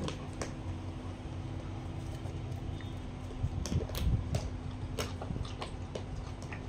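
Steady low mechanical hum, like a room fan running, with scattered light clicks and taps over it.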